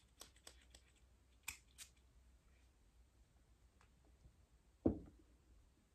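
Faint clicks of a perfume spray bottle being handled, then two quick sprays of its atomizer onto a paper blotter strip about a second and a half in. A short low sound follows near the end.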